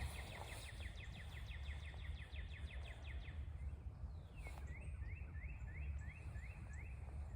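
A bird singing: a fast series of short chirps, about seven a second, that stops about three seconds in, then a slower run of rising chirps, about two a second. A steady low rumble runs underneath.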